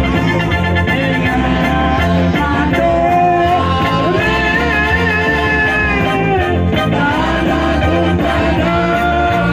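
Dance music with a singing voice over a steady, pulsing bass beat.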